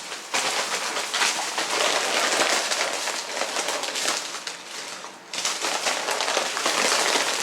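Plastic packaging rustling and crinkling as it is handled, a dense crackle that starts suddenly and pauses briefly about five seconds in.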